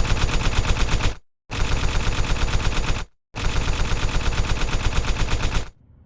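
Rapid, evenly spaced machine-gun fire, about eight shots a second, in three bursts each cut off by a moment of dead silence.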